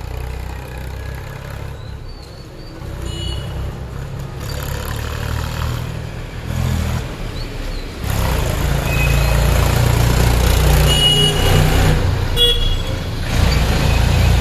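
Heavy road vehicles passing close by: a truck, then a diesel tractor pulling a brick-loaded trailer. The low engine rumble grows much louder about halfway through and stays loud, with a few short high-pitched beeps over it.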